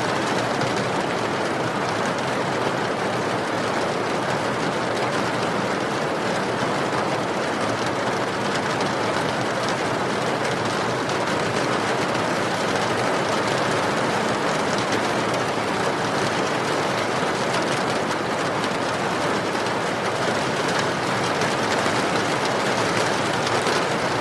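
Steady rain falling, an even hiss with no separate drops, thunder or music standing out.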